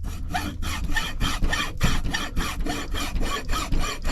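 A large file rasping rapidly back and forth across a small transformer's winding, about five strokes a second. It is scraping through the coating to see whether the wire is copper or aluminum.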